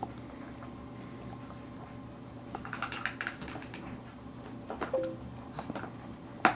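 Light clicks and taps of a spoon against a plastic bowl and seat tray during a baby's spoon-feeding, over a steady low hum. A brief squeak sounds about five seconds in, and a sharper knock comes near the end.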